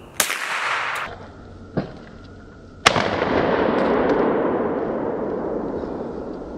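Two gunshots about two and a half seconds apart, each followed by a long echo that fades away; the second shot is the louder and its echo dies out over about three seconds. A couple of faint clicks come between the shots.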